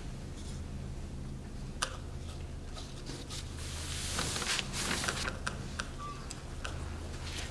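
A large sheet of painting paper rustling as it is handled on a felt-covered table, about four seconds in and lasting a second or so, with a few light clicks and taps around it over a steady low hum.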